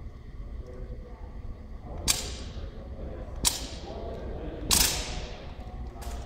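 Four sharp slaps about a second and a half apart, the third the loudest and slightly drawn out, as if several hands did not land at quite the same instant: a drill squad striking their drill rifles in unison during silent drill movements.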